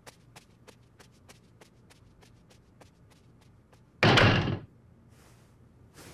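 Light cartoon footstep effects, soft ticks about three a second, as a sleepwalking child pads across the room, then a loud slam about four seconds in.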